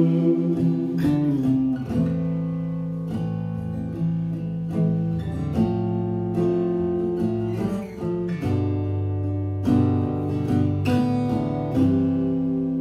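Acoustic guitar strummed with no singing, chords struck about once a second and left to ring between strokes.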